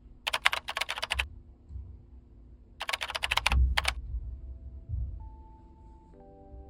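Two short bursts of rapid typing on a computer keyboard, the second ending about four seconds in. Soft held musical notes follow.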